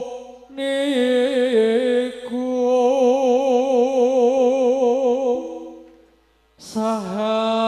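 A man singing a slow Javanese pepeling into a microphone, drawing out long notes with a wide vibrato. The voice fades out about six seconds in, then takes up another long held note.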